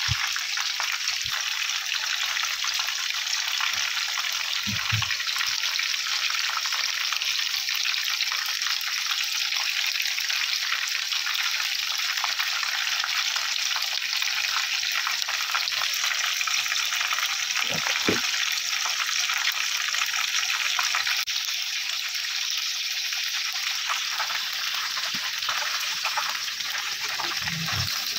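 Hot oil sizzling steadily as chicken pieces coated in shredded potato deep-fry.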